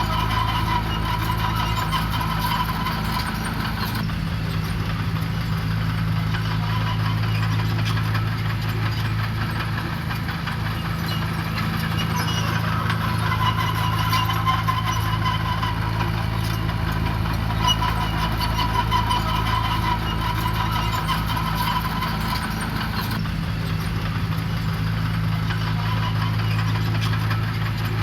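Diesel engine of heavy earthmoving equipment running steadily, its note shifting a few times.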